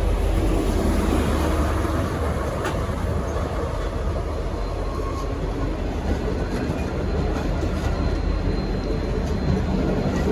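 V/Line N-class diesel-hauled passenger train rolling along: a steady low engine rumble under the noise of its wheels on the rails.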